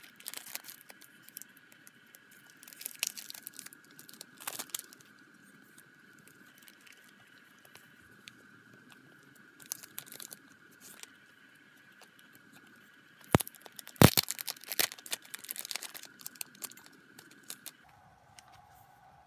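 Clear plastic sleeves crinkling and crackling as they are handled and pulled open, with a tearing sound from the sleeve's seal. The handling comes in irregular bursts, with the loudest crackles about two-thirds of the way through.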